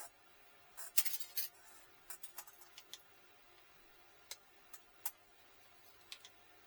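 A short scraping rustle about a second in, followed by a scatter of sharp clicks and taps from small hard objects.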